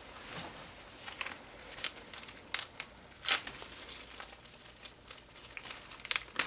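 Plastic wrap crinkling and tearing as a sealed CD album is unwrapped: a run of scattered sharp crackles, the loudest a little over three seconds in.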